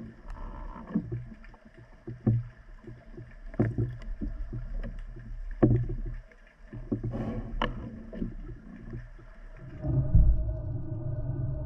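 Underwater recording from a camera carried by a swimmer: a low rumble of moving water with irregular knocks and clicks. About ten seconds in, the sound turns to a steadier, louder low rumble.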